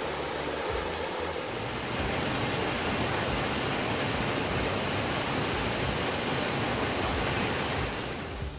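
Waterfall and stream cascade pouring over boulders into a pool: a steady rushing hiss of falling water that grows louder about two seconds in.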